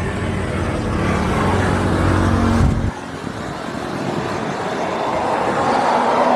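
An engine running steadily, cutting off abruptly about three seconds in, followed by a rushing noise that grows slowly louder.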